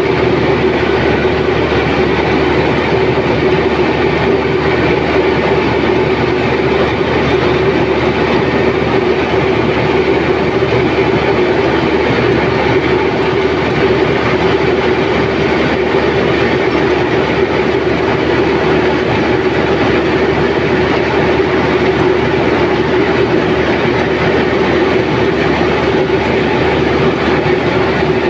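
Zoomlion tracked combine harvester running under load while harvesting rice: a loud, steady machine noise with a constant hum from the engine and threshing gear.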